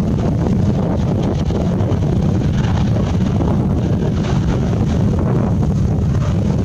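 Boeing 777-300ER's GE90 jet engines during the landing rollout on the runway, a loud, steady low noise, with wind buffeting the microphone.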